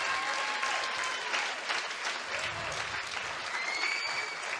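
Audience applauding: a hall full of people clapping at an even level.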